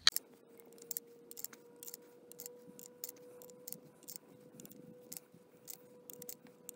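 Small metallic clicks, many and irregular, as .22 Short cartridges are pushed one at a time into the loading port of a Winchester Model 74's buttstock tube magazine.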